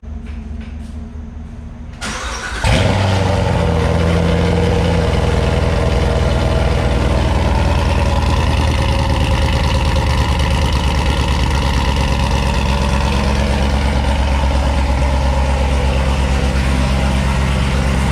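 Chevrolet Corvette C7 Z06's supercharged 6.2-litre LT4 V8 cranking and catching about two and a half seconds in with a sudden loud start, then idling steadily.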